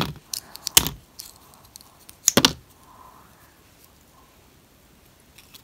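Metal alligator clips clicking and snapping as they are unclipped from mesh netting wrapped around a painted wooden lure. A sharp click comes under a second in and a louder double click near two and a half seconds, then only faint handling noise.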